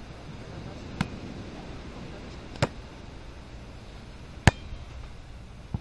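A beach volleyball being struck by players' hands and forearms in a rally: sharp smacks about every one and a half to two seconds, the third the loudest, with another right at the end, over steady wind noise.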